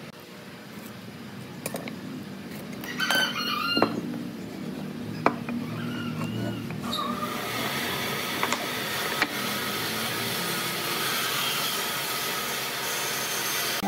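Light knocks and taps of a steel square and marking pen handled on a wooden block at a workbench, with a short wavering call in the background about three seconds in and a steady hiss building from about halfway.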